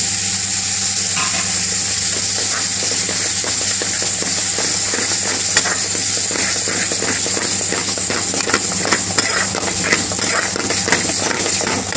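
Spinach and paneer curry sizzling in a metal pan while a steel spoon stirs it, scraping and knocking against the pan. The knocks become frequent about halfway through.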